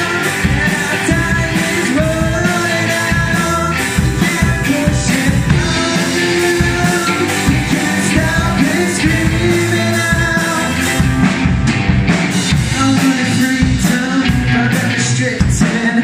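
Rock band playing live: a lead vocalist singing over electric guitar, drum kit and keyboard, with a steady driving beat.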